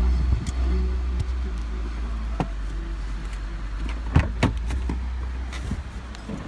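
Vehicle cabin road noise while driving: a steady low rumble from the engine and tyres, with a few sharp knocks and rattles about two and a half seconds in and again just past four seconds. The rumble grows quieter near the end.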